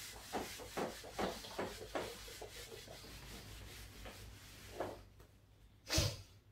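Whiteboard duster rubbing across a whiteboard to erase it, in quick back-and-forth strokes about two or three a second that thin out partway through, with one louder stroke near the end.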